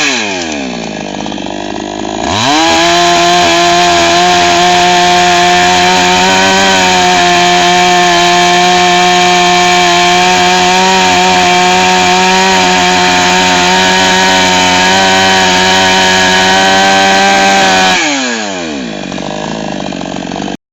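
55cc two-stroke SOLAX 5900 chainsaw engine being revved: it falls toward idle at the start, revs back up about two seconds in and holds a steady high speed for about fifteen seconds, then drops back toward idle near the end.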